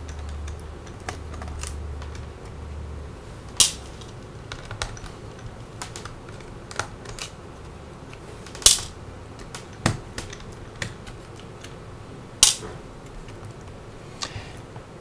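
Small Phillips screwdriver taking screws out of a laptop's optical-drive mount: scattered light clicks and taps of the metal tip on the screws and chassis, with three sharper clicks spaced about four seconds apart.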